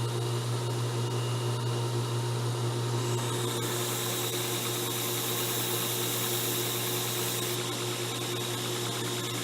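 Electric belt sander running steadily with a low motor hum and the whir of the belt over its rollers. About three seconds in, a workpiece meets the abrasive belt and a loud grinding hiss joins in, easing back a little before the end.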